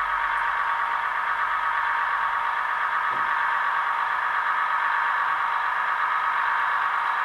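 Digital diesel engine sound from the sound decoder of a Bachmann class 158 model DMU, played through its small onboard speaker as the unit runs. The engine note is steady and thin, with little bass.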